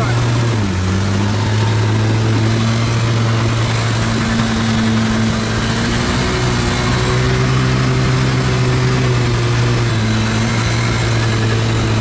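Hero Honda 100cc four-stroke single-cylinder motorcycle engine running steadily under load as it drives a homemade boat. Its pitch dips briefly about half a second in.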